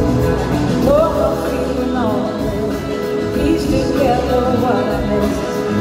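Live band playing a soul-rock song, with a woman singing lead over sustained chords and bass; her voice comes in about a second in.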